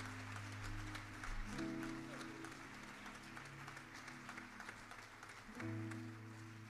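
Soft background music of slow, sustained chords, which change about a second and a half in and again near the end.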